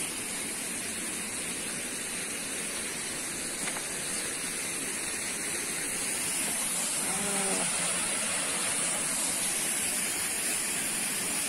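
Waterfall water rushing over rock, a steady rushing noise that grows a little louder in the second half.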